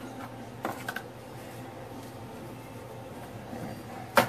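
Snap-ring pliers and a driveshaft CV joint being handled while a snap ring is taken off: a couple of small metal clicks about a second in and one sharp clack near the end, over a low steady hum.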